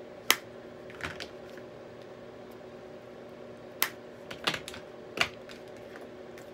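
About seven irregular sharp clicks and taps of pressed eyeshadow compacts being handled on a desk, over a faint steady hum.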